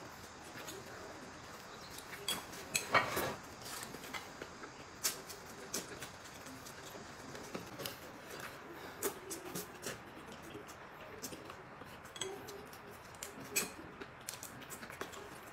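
Close-up eating sounds: a man chewing and smacking his lips on a steamed bun, with scattered small clicks of chopsticks against dishes and one louder burst about three seconds in.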